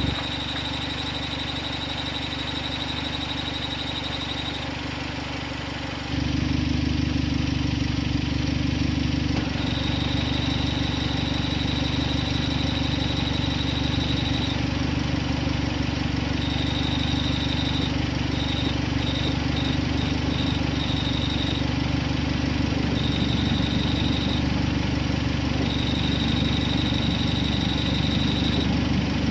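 Hyundai Genesis Coupe 2.0 turbo four-cylinder idling, with the clutch engaged, and a high-pitched cricket-like chirp that comes and goes in stretches of a few seconds, at times in quick broken pulses. The chirp is heard only at idle with the clutch pedal up, on a clutch that was newly replaced. The engine gets louder about six seconds in.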